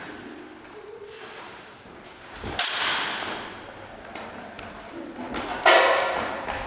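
Steel training longswords clashing twice, about two and a half seconds in and again shortly before the end, each clash sharp and ringing on briefly.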